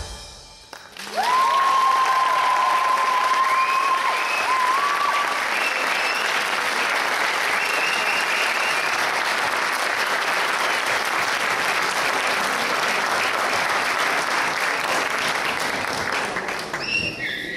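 Audience applauding steadily as a dance number ends, with a long high held cheer and other high calls over the clapping in the first few seconds; the applause fades near the end.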